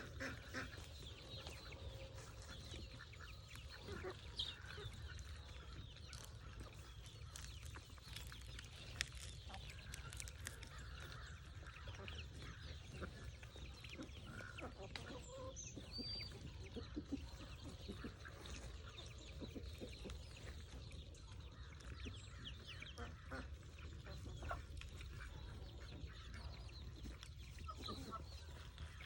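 Chickens clucking softly while feeding, with many small ticks and clicks scattered throughout over a steady low rumble.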